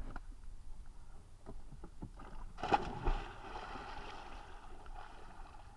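Lake water splashing and sloshing around a person swimming, with one larger splash about three seconds in that fades out slowly.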